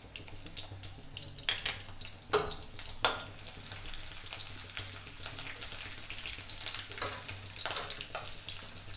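Chopped green chillies, garlic and ginger sizzling and crackling in hot oil with mustard seeds and cumin in a kadhai, stirred with a spatula. A few sharp knocks in the first three seconds.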